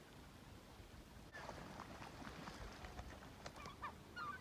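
Faint bird calls: a run of short, scattered calls starting about a second and a half in, over quiet river ambience.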